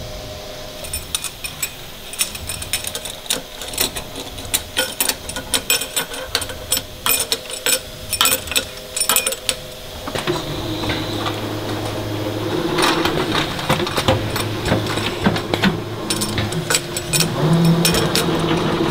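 Automatic multi-spindle tapping machine at work on steel oil-filter base plates: metal plates clink and clatter as they are set into the fixtures, then about ten seconds in the spindles start with a steady hum under continued metallic clicking as threads are tapped.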